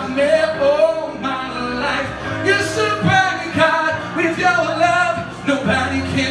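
A man singing a pop song over backing music, with drawn-out, wavering vocal notes and no clear words.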